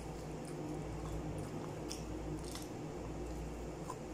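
Wet eating sounds of goat trotters in curry eaten by hand: scattered short squelches and smacks from fingers in the sauce and the mouth, over a steady low hum.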